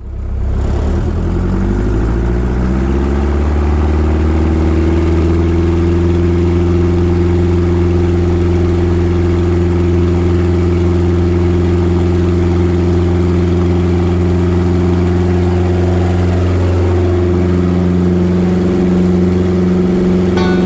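Single-engine piston aircraft engine and propeller, heard inside the cockpit of a Glasair, spooling up to full power over the first few seconds and then running at a steady high drone through the takeoff roll.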